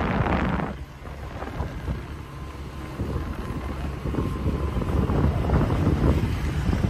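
Wind buffeting the microphone over a low rumble, dropping a little under a second in and building again. A motor scooter passes close by near the end.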